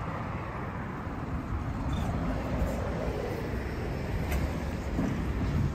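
London bus running, a steady low engine rumble mixed with road and traffic noise, with a brief high tone about two seconds in and a sharp click a little after four seconds.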